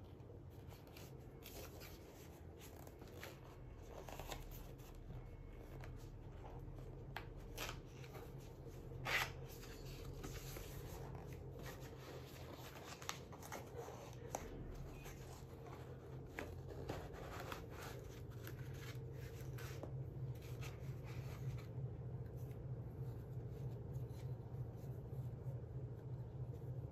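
Cardboard gift box being opened and an inner box slid out by gloved hands: faint scattered rustles, scrapes and light taps of card and paper, with one louder rustle about nine seconds in, over a low steady hum.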